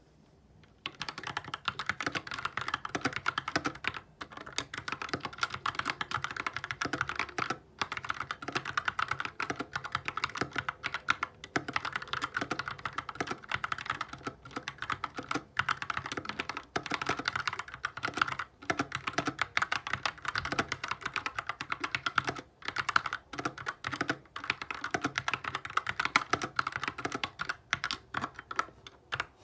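GK61 mechanical keyboard with Gateron optical brown switches, typed on quickly and continuously, giving dense fast key clacks with a few short pauses.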